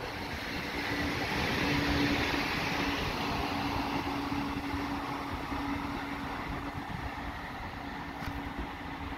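Trenitalia Pop ETR 104 electric multiple unit pulling away from the platform. Its running noise is loudest about two seconds in, then fades slowly as the train draws off, over a steady hum.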